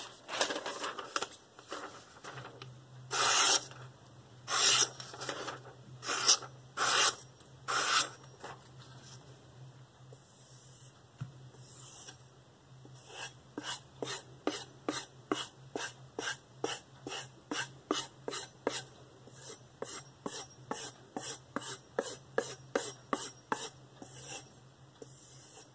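A KitchenAid santoku blade slices through thin printed paper in a few loud scraping strokes over the first several seconds, testing the edge. From about halfway in, the blade is stroked quickly and evenly on a cowhide leather strop loaded with aluminum oxide compound, about two to three soft rubbing strokes a second.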